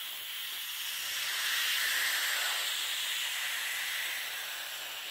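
Air hissing steadily out of a vinyl inflatable pool's valve held open with a stick, swelling slightly about a second in: the pool is being deflated.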